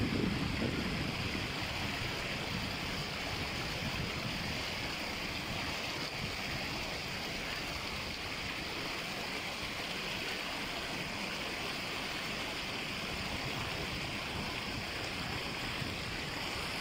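Steady rush of stream water spilling over rocks in small cascades.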